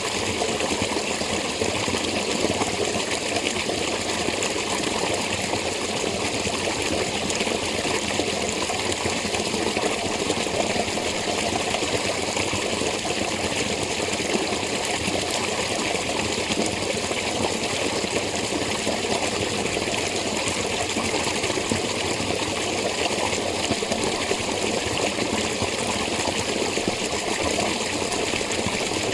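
Spring water flowing steadily, a continuous even splashing and trickling with no change.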